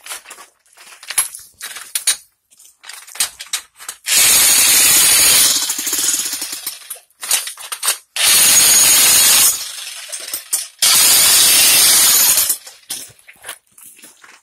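Jackhammer breaking up a concrete floor for a plumbing trench, run in three bursts of a second or two each, with scattered knocks between bursts.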